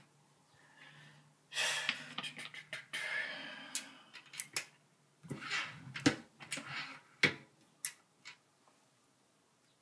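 Hands handling a brass 7.62x25mm Tokarev cartridge at a single-stage reloading press, setting it into the shell holder under the crimping die: rustling handling noise and a series of sharp metallic clicks, with the last clicks just under two seconds before the end.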